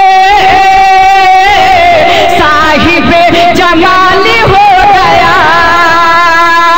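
A voice singing a naat without words: a long held note for about the first second and a half, then a wavering, ornamented melodic line.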